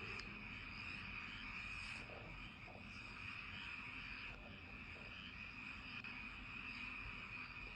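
Rural night chorus: insects trilling steadily and high, with frogs croaking low a few times.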